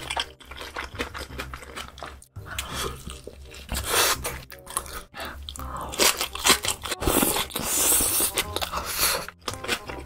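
Close-miked ASMR eating: wet chewing and crunching of spicy napa cabbage kimchi and luncheon meat, with louder bites and crunches about four seconds in and through the second half.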